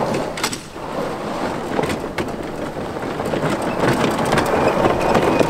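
Electric golf cart's tyres crunching over loose gravel as it turns, with many small stones clicking and popping under the wheels.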